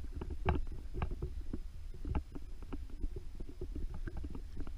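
Footsteps on dry, dusty ground, about two steps a second, over a steady low rumble of wind or handling on the microphone.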